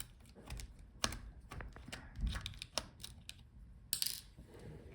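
Light, irregular clicks and taps of a small screwdriver and parts being handled inside an open laptop as the Wi-Fi card's retaining screw is taken out, with a short scrape near the end.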